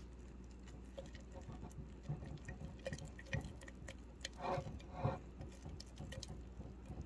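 A thin wooden stick stirring sourdough starter, fresh flour and water, in a glass jar: soft, irregular scraping and tapping against the glass, with a few louder knocks in the middle.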